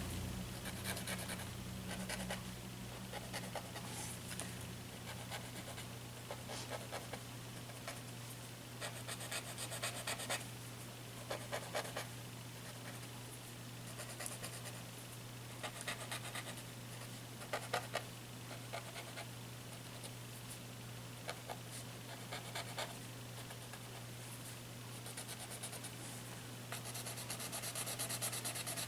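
Tortillon (paper blending stump) rubbing over paper in short, intermittent scratchy strokes, softening white highlights; a steady low hum runs underneath.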